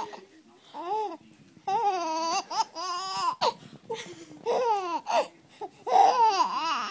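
A five-month-old baby laughing and babbling in short bursts, mixed with high, wobbling vocal noises.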